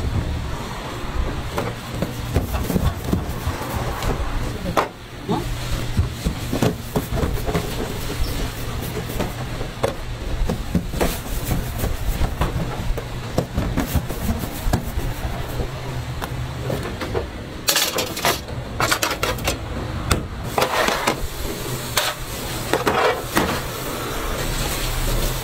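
Busy bakery kitchen background: a steady low hum with scattered knocks and clatter from work at a steel table and metal trays, busier for a few seconds past the middle.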